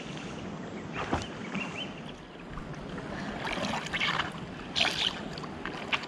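Water splashing and sloshing around swimmers in a pool, with a few sharper splashes about a second in and again around four to five seconds in.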